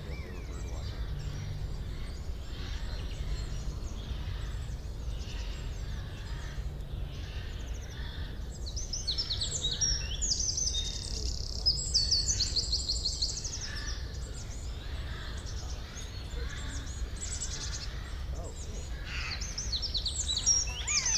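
Forest birdsong: songbirds giving fast series of high, rapid chirps, loudest in the middle and again near the end, while a softer call repeats about once a second over a steady low background rumble.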